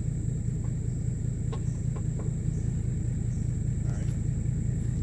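A large engine idling steadily, with a few faint clicks over it.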